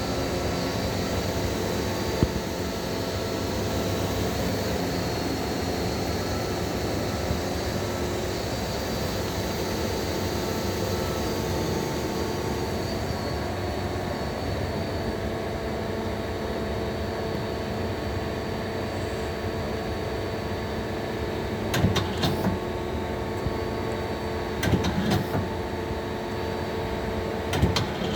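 Mazak Quick Turn 8N CNC lathe running: a steady machine hum with several constant tones, broken near the end by three short clusters of clicks and clunks.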